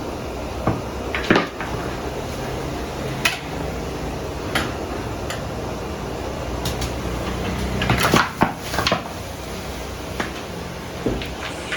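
Irregular clatter of hard objects being handled, about ten separate knocks and clinks, over a steady low hum.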